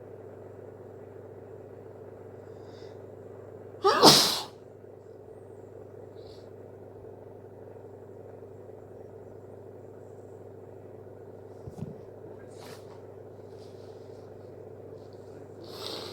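One loud, wet hay-fever sneeze from a person about four seconds in, over a steady low hum. A quieter breath follows near the end.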